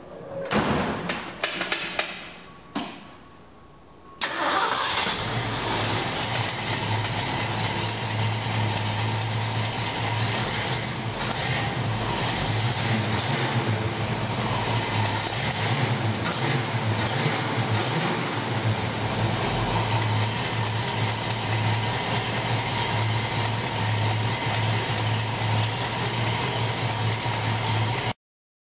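1965 Ford Mustang K-code 289 V8 being started: it cranks for a few seconds, catches about four seconds in, and settles into a steady idle. This is the test start after the engine-bay wiring was rebuilt, and the engine runs.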